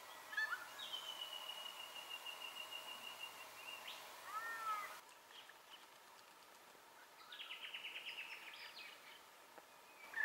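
Wild birds calling: a long high whistle that falls slightly over about three seconds, a couple of short lower calls, then, after a pause, a quick run of about a dozen sharp notes.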